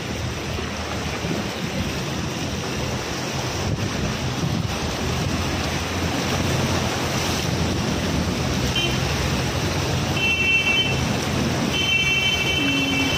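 Floodwater surging and splashing against a car driving through a flooded street, heard from inside the car, with wind on the microphone. A few short high tones sound in the last few seconds.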